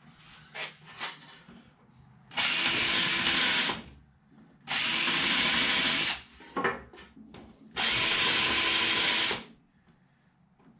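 Cordless drill boring screw holes into wooden strips, run in three steady bursts of about a second and a half each, with light handling knocks in the pauses. The holes are pre-drilled so the wood won't split when it is screwed.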